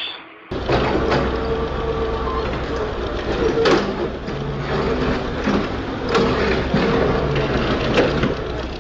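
A heavy machine's engine running steadily, with sharp metallic knocks and clanks every second or two.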